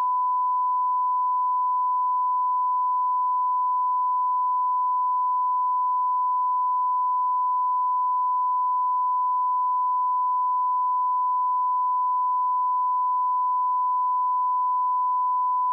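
Steady 1 kHz reference test tone: a single unbroken pure pitch at constant level.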